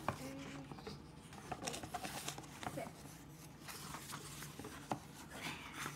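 Paper pages of a paperback picture book turned and rustled by hand, a run of soft crackles and taps.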